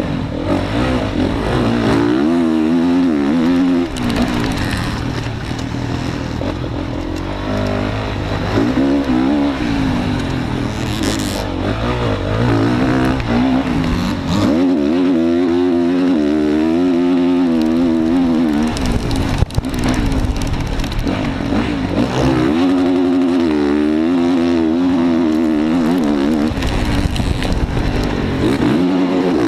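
Motocross bike engine heard up close from the rider's onboard camera, revving up and dropping off again and again as the throttle is opened and shut through the corners. A single sharp knock comes about two-thirds of the way through.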